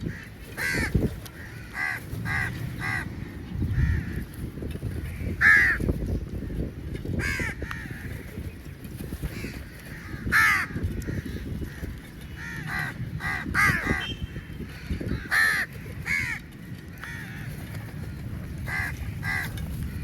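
A flock of crows cawing, harsh short calls coming every second or two, sometimes in quick runs of two or three, over a steady low rumble of background noise.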